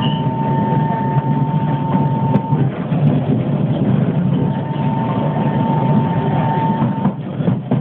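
Singapore MRT train running at speed, heard from inside the carriage: a steady low rumble, with a thin high whine that sounds for the first couple of seconds and again in the latter half.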